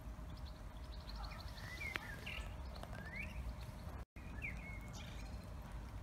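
Birds calling: short chirps and a few quick whistled notes that glide up and down, over a low steady rumble of outdoor background noise. The sound cuts out for an instant just after four seconds.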